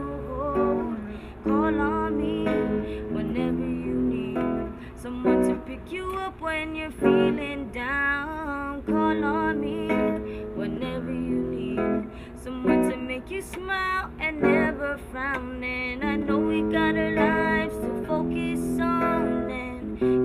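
Acoustic guitar picked and strummed in a slow song, with a voice singing a melody that bends and wavers over it.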